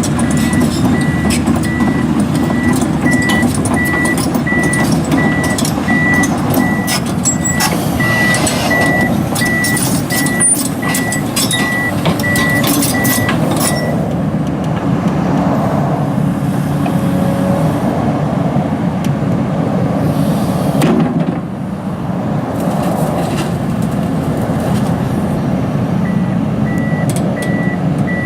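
Komatsu PC240LC-10 excavator's diesel engine running steadily, with its travel alarm beeping at an even pace while it moves. The beeping stops about halfway through and comes back near the end, and scattered clanks and rattles sound while it is beeping.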